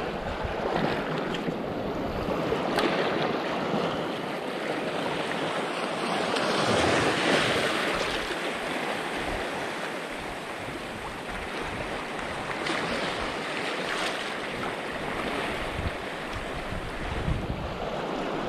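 Small waves washing over a shallow rocky reef, with wind on the microphone; the wash swells about seven seconds in.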